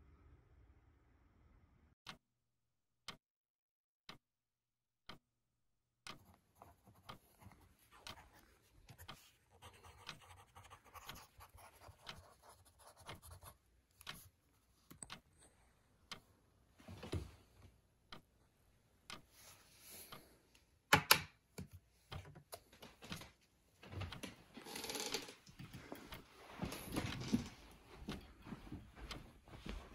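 Four single sharp ticks about a second apart over near silence. Then a pencil writes on a notepad, with scratching strokes and small knocks, and a loud sharp click comes about 21 seconds in. Busier rustling and movement fill the last few seconds.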